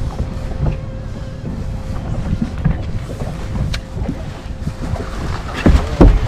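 Wind buffeting the microphone on an open boat deck, a steady low rumble, with a faint steady hum until about five seconds in and a few heavy thumps near the end.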